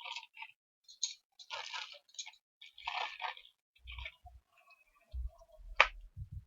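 Rustling and clicking of a jelly bean box and its beans being handled and tipped into a bowl, with soft bumps and one sharp click about six seconds in.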